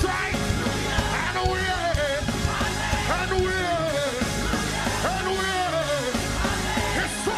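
Live gospel praise-and-worship music: a full band with a driving beat under a lead singer's loud, arching vocal runs, with a choir singing along.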